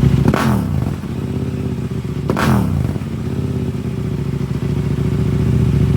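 890R motorcycle's parallel-twin engine running through a GPR Evo aftermarket exhaust on a MaxxEcu race tune, idling with sharp throttle blips: the revs jump up and fall back quickly, once shortly after the start and again about two seconds later, with another blip starting at the very end.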